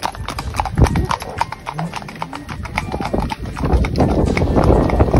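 Several horses' hooves clip-clopping on a paved road, an irregular run of hard knocks from more than one animal. A low rumble grows louder under the hoofbeats about two-thirds of the way in.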